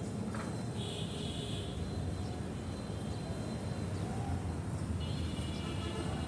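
Outdoor background: a steady low rumble, with two high, buzzy trills of about a second each, one near the start and one about five seconds in.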